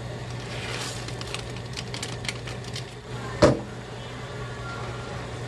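A plastic instant-ramen packet crinkling in the hand, over a steady low hum. About three and a half seconds in comes one short, loud sound that slides down in pitch.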